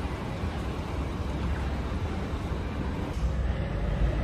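City street ambience: a steady wash of traffic noise with a low rumble, getting louder about three seconds in.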